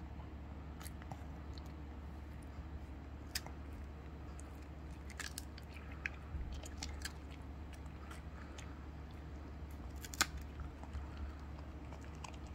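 Shih Tzu puppy biting and crunching a hard dog biscuit held in a hand: scattered crisp crunches and clicks, the sharpest about ten seconds in.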